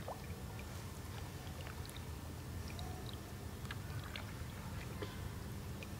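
Quiet pond ambience heard from a kayak: a steady low rumble with faint scattered clicks and small water sounds against the hull, and a few faint short chirps.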